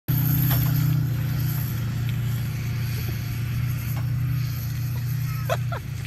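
A Toyota Land Cruiser's engine runs steadily under load as the SUV drags a disc harrow through ploughed soil, making a low, even drone. A couple of short higher-pitched sounds come near the end.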